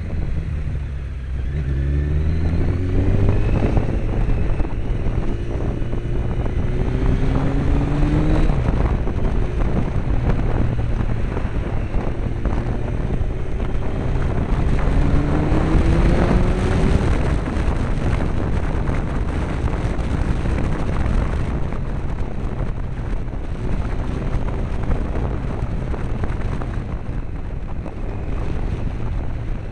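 Honda CBR900RR Fireblade's inline-four engine running while riding, its revs rising in short pulls several times, around two, eight and sixteen seconds in, with wind noise on the microphone.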